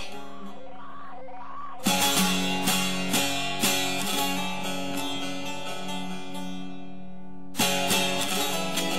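Background music: a calm passage of plucked or keyboard-like notes, with a fresh chord struck about two seconds in and again near the end.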